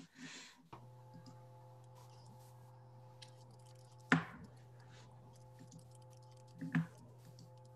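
A steady low hum with a few fainter higher tones over it, switching on a little under a second in, with two sharp clicks, about four and about seven seconds in.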